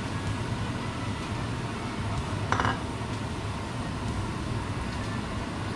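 Chopped garlic sizzling in oil in a wok while a wooden spatula stirs it, with a single short clink about two and a half seconds in.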